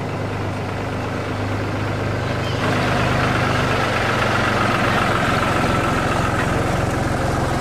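Farm tractor's engine running at a slow, steady pace as it tows a parade float past, growing louder about two and a half seconds in as it comes close.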